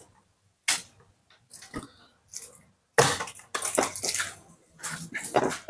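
Irregular short bursts of rustling and squishing from gloved hands handling food on a plate, with a sharper burst about three seconds in.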